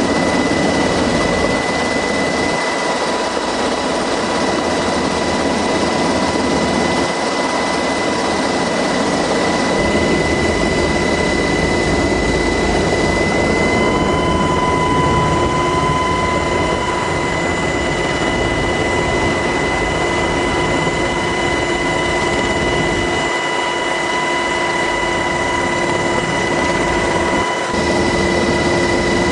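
MH-60S helicopter running, heard from on board: a steady loud rush of turbine and rotor noise with constant high-pitched whines running through it.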